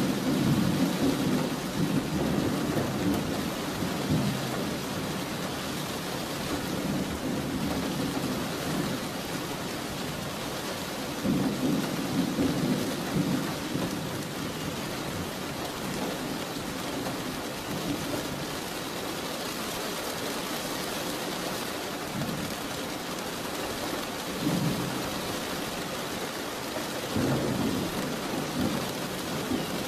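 Steady rain falling, with low rolls of thunder rumbling at the start, around the middle, and twice near the end.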